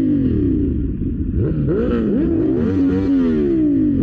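Motorcycle engines at highway speed, the rider's CFMoto 450SR parallel twin among them, with several engine notes at once rising and falling in pitch as the bikes rev and shift. Near the middle one note climbs sharply, and from about three seconds in a note falls away steadily.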